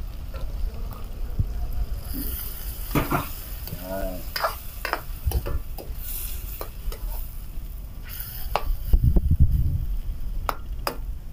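Chicken and button mushrooms sizzling in a hot wok as water is added to the pan, with a metal ladle scraping and clinking against the wok as it stirs.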